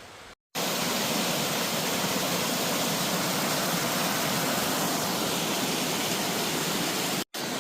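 Rushing water, like a stream or small waterfall, making a loud, steady hiss that starts and stops abruptly on edit cuts.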